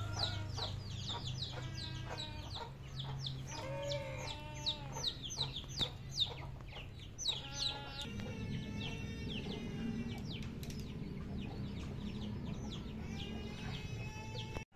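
Chickens clucking, over a constant run of rapid, high, falling chirps. A low steady drone lies underneath.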